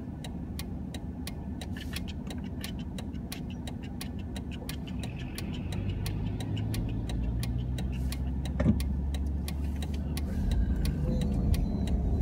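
Car turn signal ticking evenly, about three ticks a second, over the car's low steady hum while it waits to turn. From about seven seconds in, a louder low rumble as a large delivery truck pulls up close alongside.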